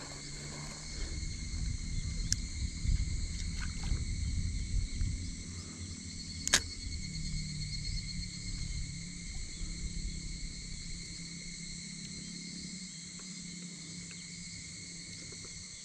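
Insects shrilling steadily in several high bands, over a low rumble of wind on the microphone that rises and falls. One sharp click about six and a half seconds in.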